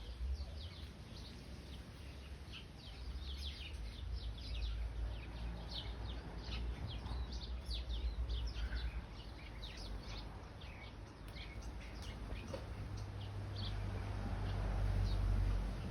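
A flock of sparrows chirping: many short, quick chirps overlapping, busiest through the first two thirds and thinning out later. Wind rumbles on the microphone underneath, strongest near the end.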